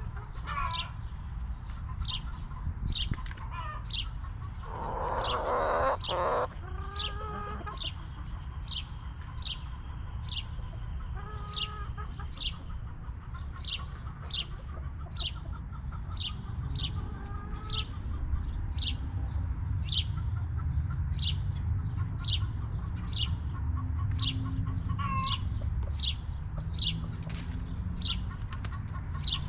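Backyard hens clucking now and then, with a loud burst of wing flapping about five seconds in. A high, short chirp repeats evenly about every 0.7 seconds throughout, over a steady low background hum.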